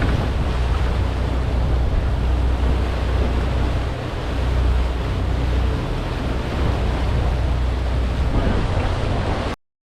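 Charter fishing boat running on the open ocean: a steady low engine drone under wind on the microphone and rushing water. It cuts off suddenly near the end.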